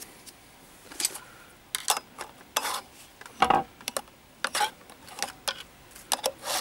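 Irregular metal clinks, taps and short scrapes as a steel rod and the sheared oil-slinger counterweight are worked against the rotor and casing inside an opened refrigeration compressor's motor end, with one heavier knock about three and a half seconds in.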